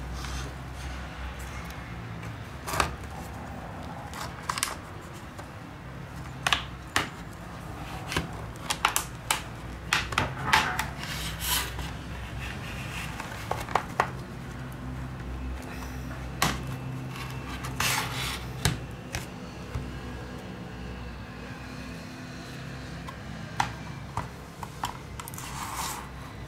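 Small hand tools and plastic parts of a Huawei S10 clicking, tapping and scraping as the phone is taken apart for a battery replacement. The clicks are scattered and come thickest about a third of the way in, over a steady low hum.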